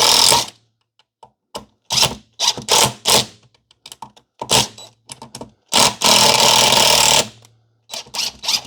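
Impact driver with a DEWALT FlexTorque #2 Phillips bit driving screws in a series of short bursts, with one longer run of about a second and a half past the middle.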